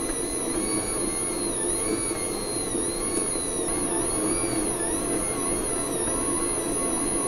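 Hobart commercial stand mixer kneading bread dough with its dough hook in a stainless steel bowl: a steady motor whir, with a whine that dips and rises about once a second.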